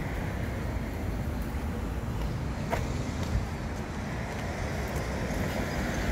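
Steady traffic noise from cars on a multi-lane city street, with one brief click about two and a half seconds in.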